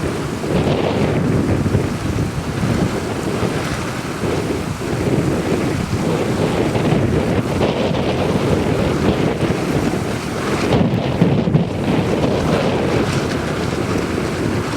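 Strong wind buffeting the microphone over the rush and splash of water around a Tamanu outrigger canoe sailing in high wind. The noise surges and eases unevenly, with no engine or voice.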